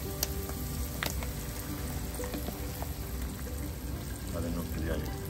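Mushrooms and onions sizzling in hot oil in a frying pan, a steady sizzle. Beaten egg is poured into the pan near the end.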